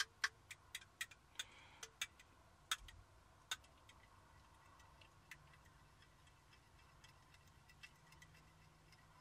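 Utensil clinking against the side of a bowl while the pancake batter's liquid ingredients are stirred: quick, even clicks about four a second, stopping about a second and a half in, then a few scattered clinks.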